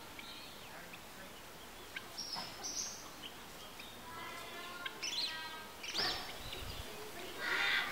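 Birds chirping and calling in the background: scattered short chirps and quick up-and-down whistled calls, busier in the second half, with a brief low rumble about six seconds in.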